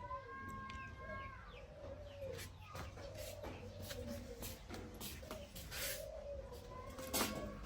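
A bird cooing over and over, a low wavering call repeated throughout, with a held higher call in the first second. Sharp clicks and knocks are scattered through it, the loudest knock near the end.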